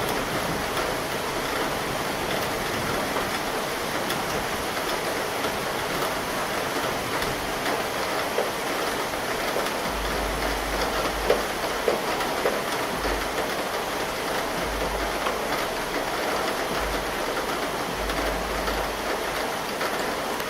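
Steady summer rain falling, a continuous even hiss with a few sharper drop ticks. From about halfway through, a very low rumble comes and goes underneath.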